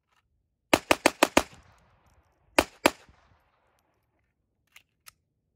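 Glock 44 .22 LR pistol firing: a rapid string of five shots about a second in, then two more shots about a second later. Two faint clicks follow near the end.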